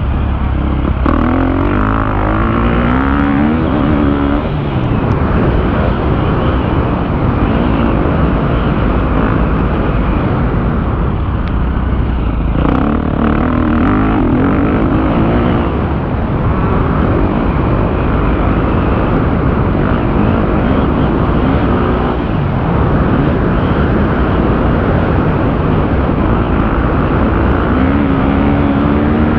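KTM 250 motocross bike's engine running hard under the rider, its pitch climbing and falling again and again as the throttle opens and closes around the track.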